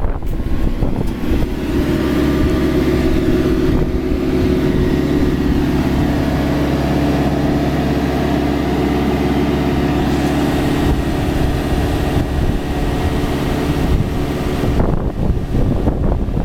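Cat TH83 telehandler's diesel engine running. It revs up about a second and a half in and holds a steady higher speed while the hydraulics are worked, then eases back near the end.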